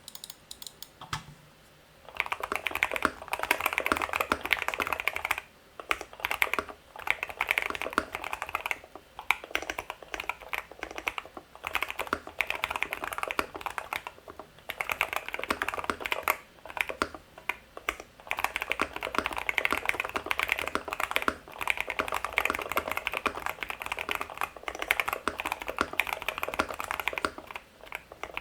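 Fast typing on a QK60 r1 full-aluminium 60% keyboard with Kailh T1 tactile switches (oiled, 67 g springs), PBT keycaps on a 5052 aluminium plate, gasket-mounted and foam-dampened. It starts about two seconds in and comes in quick runs of keystrokes with brief pauses every few seconds.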